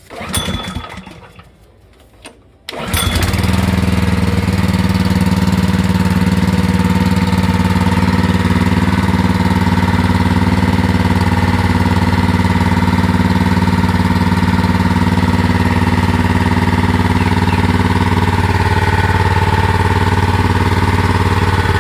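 Honda GP160 single-cylinder four-stroke engine on a 3-inch water pump being started: a short loud burst about half a second in, then the engine catches about three seconds in and runs steadily at constant speed.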